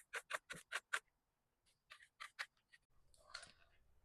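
Quick series of sharp clicks and light taps from a heat pump's cover or parts being handled: about five in the first second, a few more about two seconds in, then a brief rustle.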